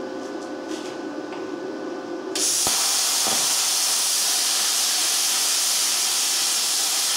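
Луч Профи CUT-50 plasma cutter: a low hum with a few steady tones, then about two and a half seconds in the torch fires and a loud, steady hiss of air and cutting arc sets in and holds.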